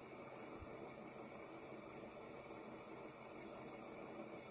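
Faint steady whirring hiss of a spinning fidget spinner's bearing, running on without change.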